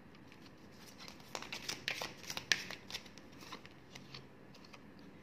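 Tarot cards being handled: a run of light, irregular clicks and snaps of card stock, bunched between about one and four seconds in.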